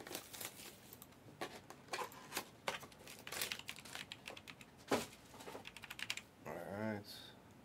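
Scattered light clicks and taps at an irregular pace, with a brief murmur of a voice a little before the end.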